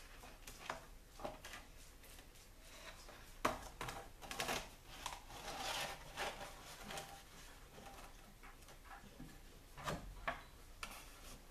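A sanding belt being worked by hand onto the rollers of a bench belt sander, with the motor not running: scattered clicks and knocks of metal parts and the belt rubbing and scraping as it is fitted. The sharpest knock comes about three and a half seconds in, with two more near the end.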